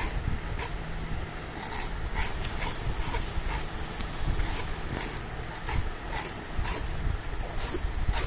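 Kitchen knife scraping the skin off a bottle gourd in quick, short strokes, about two a second.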